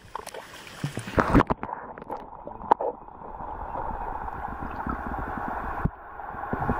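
Water sloshing with a few sharp knocks in the first three seconds, then a steady, muffled rush of stream water heard through an underwater camera housing, slowly growing louder.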